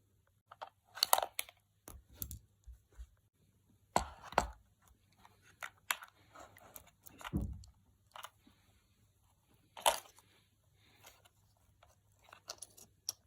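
Handling noises as a 3S LiPo battery is fitted into an RC truck: irregular plastic clicks, knocks and rustling, with a few heavier thumps.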